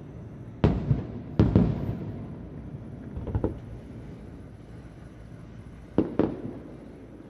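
Distant aerial fireworks bursting: two loud bangs in the first two seconds, a softer patter of reports about halfway, and another bang near the end, each trailing off in a low rumble.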